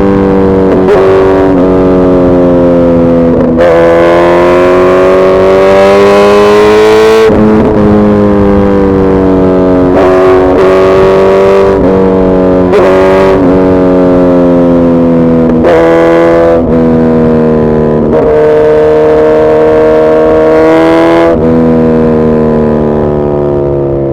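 Suzuki Hayabusa Gen3's inline-four engine running hard and loud, its pitch drifting slowly up and down and broken by short dips every few seconds.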